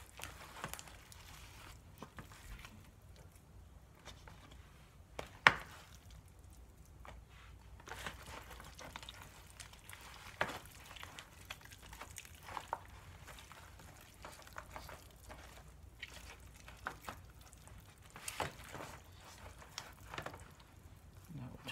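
Hands tearing meat off a rotisserie chicken: soft squishing and tearing with the plastic tray crinkling, and scattered clicks and taps, the sharpest about five seconds in.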